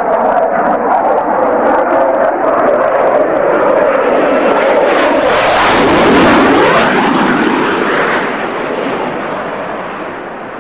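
Jet aircraft making a low pass overhead: a continuous jet roar that builds to its loudest with a sharp hissing whoosh about six seconds in, the pitch sweeping down as it passes, then fading steadily as it flies away.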